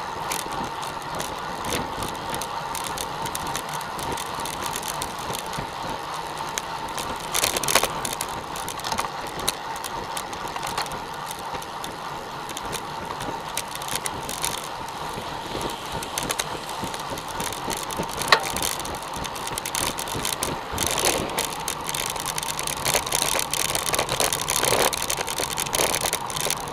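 Road bikes rolling in a group on asphalt, heard from a bike-mounted camera: a steady rush of wind and tyre noise with a faint steady hum, broken by a few short knocks or rattles, the sharpest about 18 seconds in.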